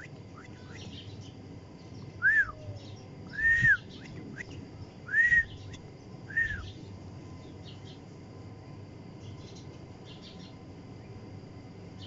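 Ginger kitten mewing four times, short high mews that rise and fall in pitch, spaced a second or two apart.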